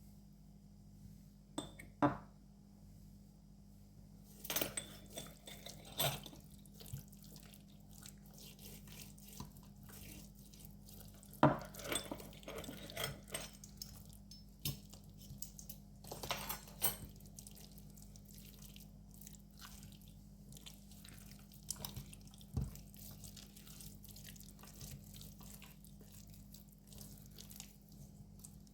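Hands rubbing a spice mix into a raw leg of lamb: soft wet squishing with scattered sharp knocks and clatters of the tray or bowl, the loudest about 2 and 11 seconds in, over a steady low hum.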